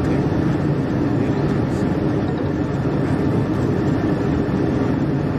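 Steady low rumble and hiss inside a parked police car's cabin, with no sharp events.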